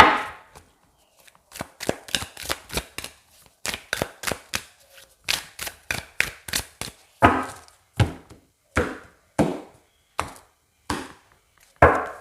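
A deck of tarot cards being handled: a run of sharp, irregular slaps and taps, about two or three a second.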